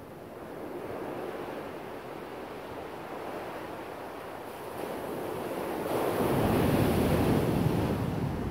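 Ocean surf washing onto a sandy beach, a steady rush that swells and is loudest near the end, with some wind on the microphone.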